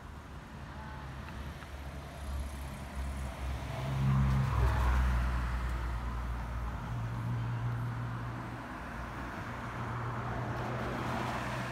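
Road traffic at a street intersection: car engines and tyres running past, swelling to their loudest about four seconds in, over a steady low engine hum.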